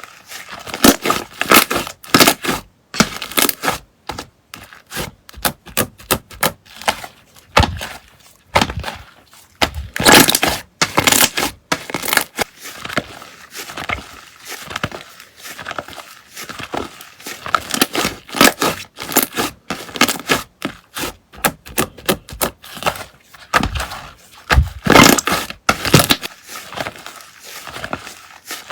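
Slime being pressed, squished and stretched by hand, giving a dense, irregular run of crackles and pops, in bunches with short pauses between them.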